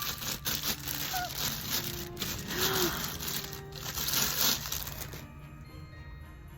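Packaging crinkling and rustling as a calendar item is unwrapped by hand, over quiet background music; the rustling stops about five seconds in.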